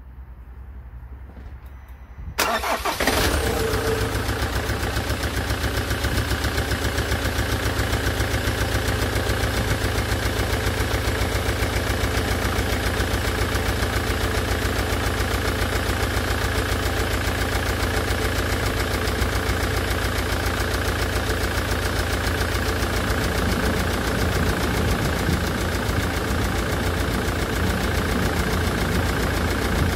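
Land Rover Defender's Puma 2.4 TDCi four-cylinder diesel cranking and catching about two seconds in, then running at a steady idle. This is its first start after a rebuild with a new oil pump, and the hydraulic tappets are still filling with oil, so it is running noisier than it will once they fill.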